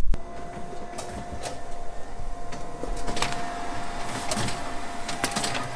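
Risograph stencil duplicator running off prints: a steady machine whine with a series of sharp clicks as sheets feed through.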